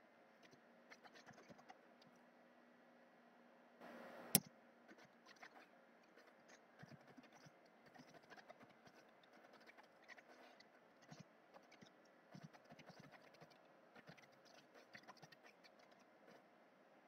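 Faint, irregular clicking of computer keyboard keys being typed, with one sharper, louder click about four seconds in.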